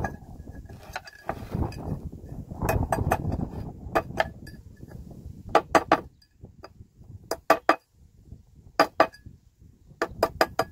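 Hand work on the rusted metal parts of a submersible well pump. A rough scraping rustle runs for the first few seconds, then sharp metal clicks and clinks come in short clusters of two or three.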